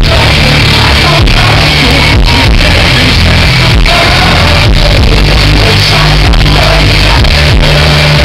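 A rock band playing live at a large outdoor concert, with sung vocals over loud, heavy bass and drums, recorded from the crowd and heavily distorted. Shouts from the audience mix in.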